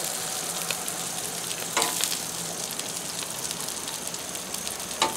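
Grilled cabbage and toasted croissants sizzling on a hot steel flat-top griddle, a steady hiss, with metal tongs clicking and scraping on the griddle surface, sharpest about two seconds in and again near the end.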